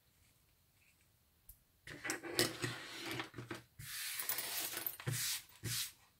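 Close-up handling noise from a hot-glue crafting job on a ribbon-wrapped plastic headband: about two seconds in, a run of small clicks and knocks, then longer rustling scrapes as the ribbon end is glued and pressed down.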